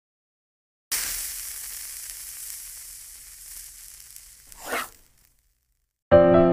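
Logo-intro sound effect: a sizzling hiss that starts suddenly about a second in and slowly fades, followed by a short swoosh. Music begins just before the end.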